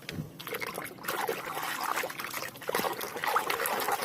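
Water trickling and splashing as a muddy toy is washed, getting louder about a second in.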